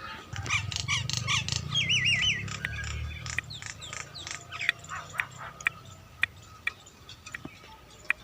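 Birds calling: rapid harsh squawks and chirps, with a brief warbling call about two seconds in, over a low rumble that fades out after about six seconds.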